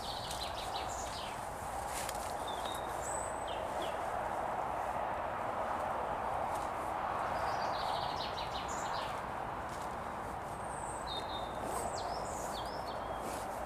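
Small woodland songbirds singing in short chirping phrases several times, over a steady outdoor hiss, with a few faint clicks.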